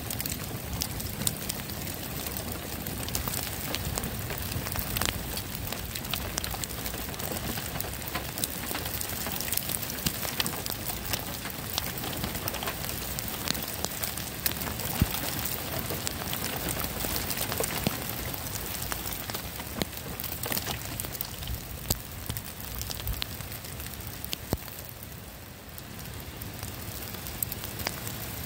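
Steady rain falling, with many sharp individual drop hits; it eases briefly near the end, then picks up again.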